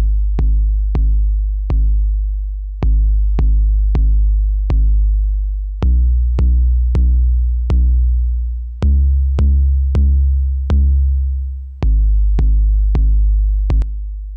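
An 808 bass line playing on its own. It is a deep sub-bass pattern of notes, each with a sharp click at the attack and a long decaying tail, changing pitch, in a phrase that repeats about every three seconds. It is being run through a hard-set 1176-style FET compressor plugin (Overloud Comp76) that brings out the tails.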